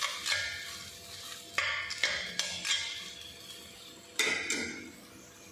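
Metal spatula scraping and clinking against a cast-iron kadai while stirring frying onion-tomato masala: a few separate sharp clinks with a short metallic ring, the loudest a little after 4 s in.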